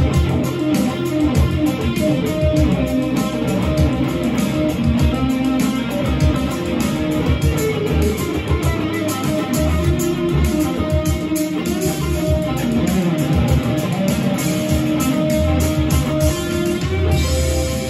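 Stratocaster-style electric guitar played as an improvised lead, a continuous run of single notes with bends that glide in pitch.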